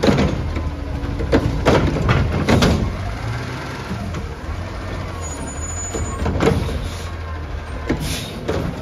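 Garbage truck's diesel engine running steadily, with a cluster of sharp knocks and clatters in the first three seconds and two more near the end, as yard waste is loaded into its front carry can.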